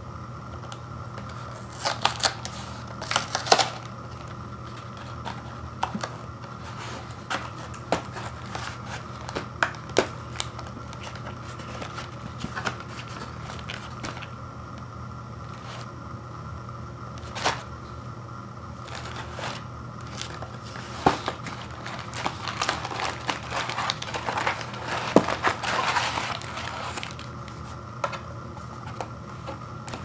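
A cardboard snack-bar box is torn open with a few sharp rips, then handled with scattered clicks. Later there is a longer stretch of crinkling as the plastic-wrapped bars are taken out. A steady low hum runs underneath.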